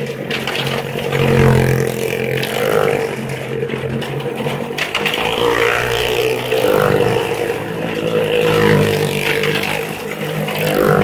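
Car and motorcycle engines running hard as they circle the vertical wall of a wall-of-death drum, the sound swelling and fading over and over as they pass.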